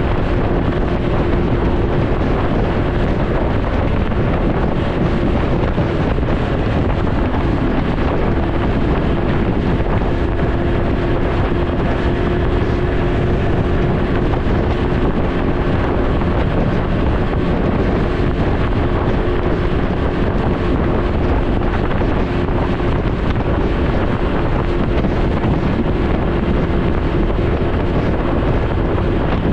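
Wind buffeting the microphone over the steady drone of a Can-Am Ryker 900's three-cylinder engine while riding, the engine note holding level with no revving.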